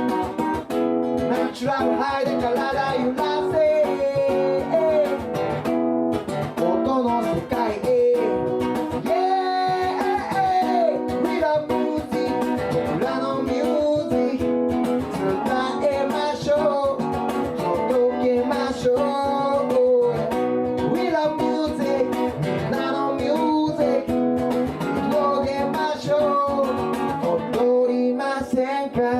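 Live acoustic guitar strummed steadily while a man sings a melody over it: a singer-songwriter performing an original song.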